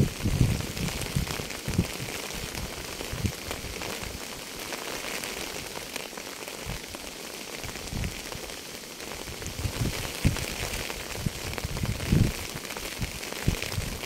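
Steady rain falling on a surface, an even hiss throughout, with scattered brief low bumps now and then.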